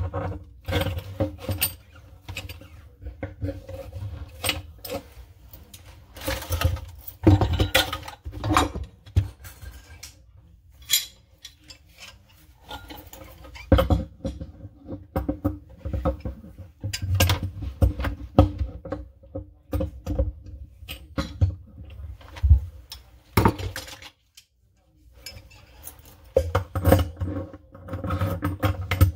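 Tools and plumbing parts being handled under a sink: irregular metallic clinks, knocks and rattles over low handling thumps, with a short pause near the end.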